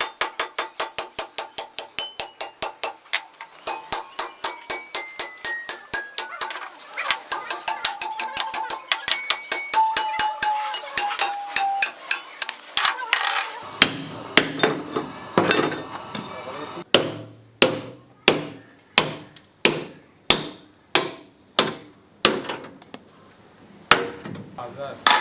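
A hammer striking steel over and over: quick, even blows about three or four a second for roughly the first half, then slower blows about one and a half a second.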